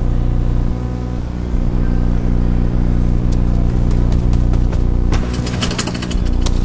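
A steady low hum made of several even tones, with scattered sharp clicks and knocks that cluster in the last second or two.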